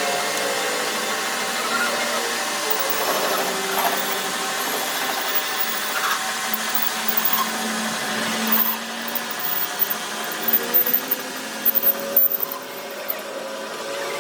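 A power tool running steadily in a metalworking shop, with a run of sharp clattering hits from about ten to twelve seconds in.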